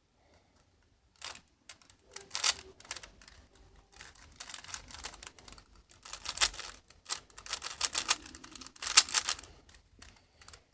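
Rubik's cube being turned: quick plastic clicks and rattles from the layers, coming in several short clusters with pauses between.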